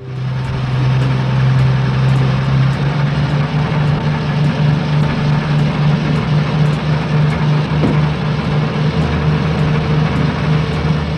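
Sound effect of a heavy truck engine running steadily with a deep, even hum, as for a truck driving along.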